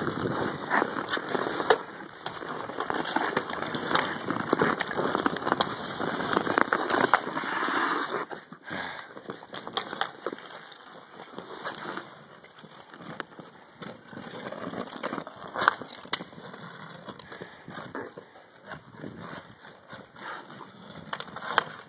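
Ice hockey skate blades scraping and gliding on rink ice, with scattered sharp clicks of a hockey stick striking a puck. The scraping is louder for about the first eight seconds, then fades.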